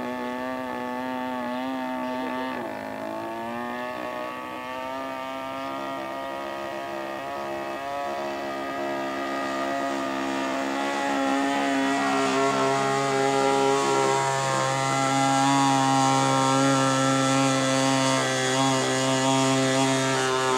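Single-cylinder two-stroke chainsaw engine (GL5200M, 52 cc) driving the propeller of a large radio-controlled model plane in flight. It runs steadily with a brief dip in pitch about three seconds in, and grows louder in the second half as the plane comes closer. The uploader blames a poor propeller choice and carburettor setting for the laboured flight.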